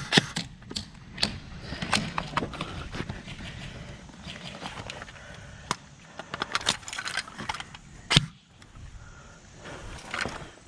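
Scattered sharp clicks and knocks at an uneven pace, over a low background rustle, with one louder knock about eight seconds in.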